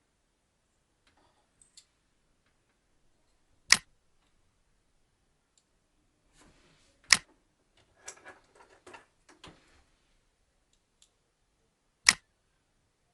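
Three loud, sharp single clicks a few seconds apart, with a short patch of small clicks and rattling between them near the middle.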